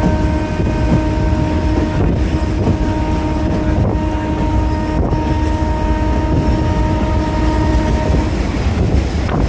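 A train running with a heavy, steady rumble, while the locomotive horn sounds one long, steady blast that cuts off about eight seconds in.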